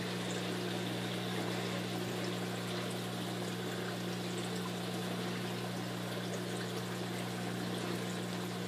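Steady water flow and pump noise from a running saltwater aquarium system: water pouring and trickling through the tank's plumbing, with a constant low hum.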